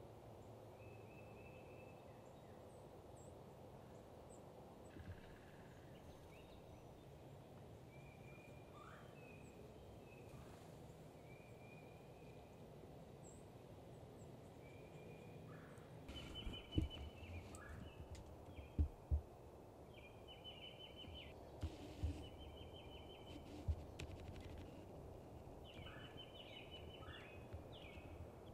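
Faint background with scattered bird calls. From about halfway there are repeated short, rapid trills, along with a few soft low thumps.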